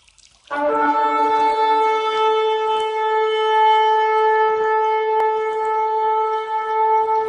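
A shofar blown in one long, steady blast that starts about half a second in. A lower note sounds briefly at the start before it settles on one held pitch.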